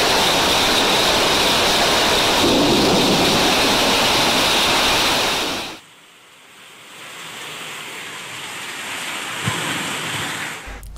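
Heavy rain and gushing rainwater runoff, a loud steady rush that cuts off suddenly about six seconds in. It gives way to a softer steady hiss of rain falling on a tiled roof and yard, slowly growing louder, with one brief thump near the end.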